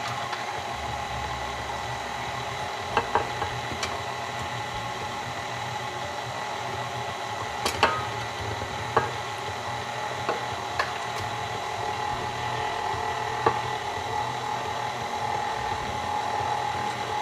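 KitchenAid Classic stand mixer running, its flat beater working flour into cookie dough in a stainless steel bowl: a steady motor whine with a few short clicks here and there.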